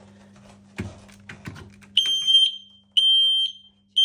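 Smoke alarm sounding its test alarm: a few knocks and clicks, then loud, high-pitched half-second beeps about one a second, with a third beep starting at the end.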